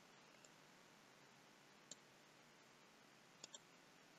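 Faint computer mouse clicks over near silence: a single click about two seconds in, then a quick double click near the end.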